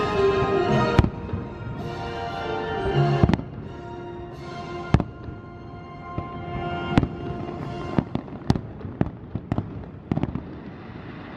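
Aerial fireworks shells bursting with sharp bangs at irregular intervals, coming quicker in the last few seconds, over music with long held notes.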